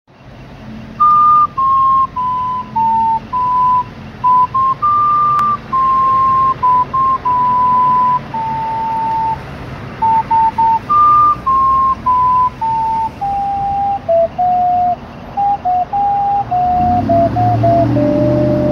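A slow tune of clear, whistle-like single notes, blown on something held to the mouth. It falls in short stepwise phrases, and the opening phrase comes round again about halfway through. Near the end a passing vehicle's engine and tyres rumble beneath it.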